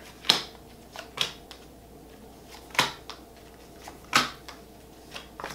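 Tarot cards being handled and laid on a table: a handful of short, sharp clicks and slaps at uneven intervals, over faint room hum.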